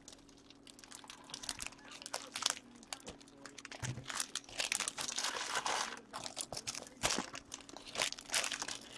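Plastic wrapping crinkling and crackling as it is handled and crumpled, in irregular bursts that are densest around the middle and again near the end.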